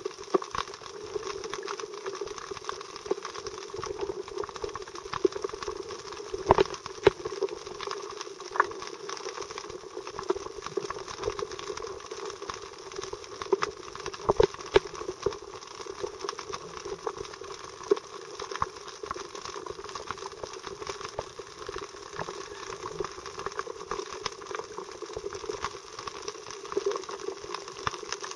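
Underwater sound picked up through a camera's waterproof housing: a steady, muffled rushing of water with scattered small clicks and crackles.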